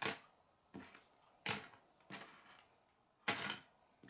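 Plastic K'nex rods and connectors clicking together as pieces are snapped in place: about five sharp, irregularly spaced clicks, with a quick cluster of clicks a little past three seconds in.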